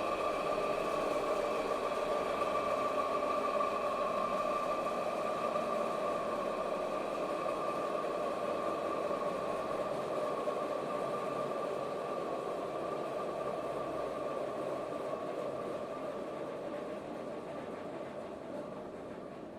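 Animal feed mill machinery running steadily: a continuous mechanical drone with a steady whine, slowly fading out.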